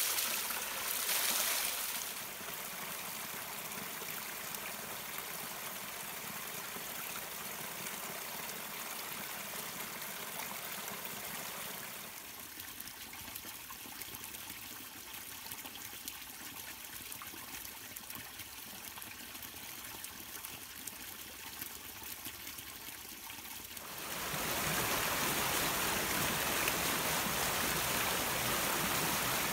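Small woodland brook trickling and splashing over stones and leaf litter, quieter through the middle. About 24 s in the sound changes abruptly to the louder, fuller rushing of a fast, shallow stream running over rocks.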